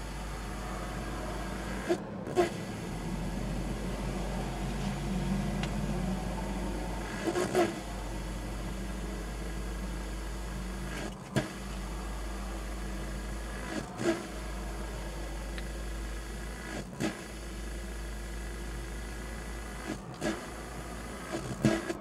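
Small handheld drill running against windshield glass, drilling stop holes just ahead of the legs of a star chip to keep the cracks from spreading. The steady hum breaks off briefly several times, with a click at each break.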